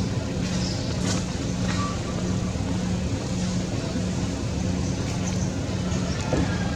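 A steady motor drone, like an engine running, with a low hum that pulses at an even beat about once a second.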